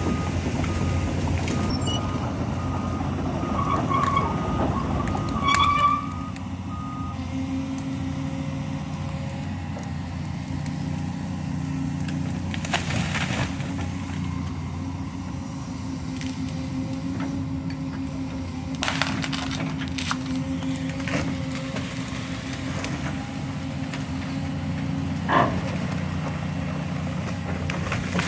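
Excavator's diesel engine running steadily while it works logs out of a river, with a repeating high beep for the first several seconds. There are two short squeals about four and five and a half seconds in, and a few sharp knocks later, the loudest about 25 seconds in.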